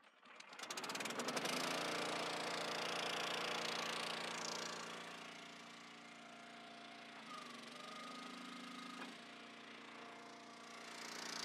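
Log splitter's gasoline engine started on its electric starter: a second or so of rapid cranking, then the engine catches and runs steadily. It settles lower from about five seconds in and picks up again near the end.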